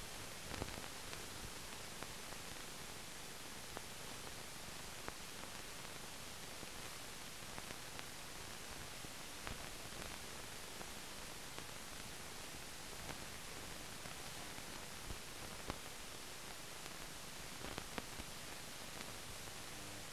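Steady hiss with scattered faint clicks: the empty noise floor of a silent newsreel with no soundtrack.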